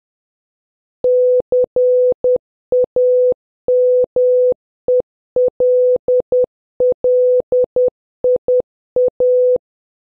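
Morse code practice tones: one steady electronic beep keyed in short dots and long dashes, spelling the word CAMELLIA (-.-. .- -- . .-.. .-.. .. .-).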